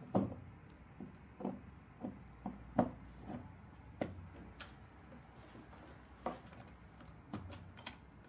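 Irregular clicks and knocks as handle cable plugs are fitted into the round metal connector sockets on a cavitation beauty machine's panel, with cables knocking about. The loudest knocks come just after the start and about three seconds in.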